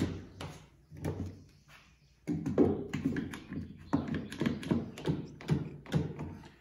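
One-handed trigger bar clamp being tightened onto a wooden board on a workbench: the trigger handle is squeezed over and over, giving a quick run of ratcheting clicks and knocks from about two seconds in, after a few scattered knocks.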